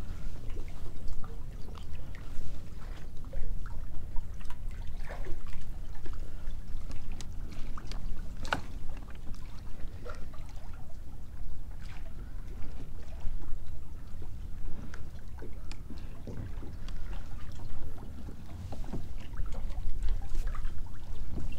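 Small waves lapping and slapping against a kayak hull, scattered little splashes and ticks throughout, over a steady low wind rumble on the microphone.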